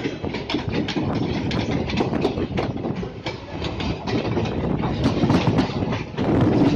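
Moving Indian Railways passenger train heard from an open coach doorway: a steady running rumble with frequent irregular clicks of the wheels over rail joints and points.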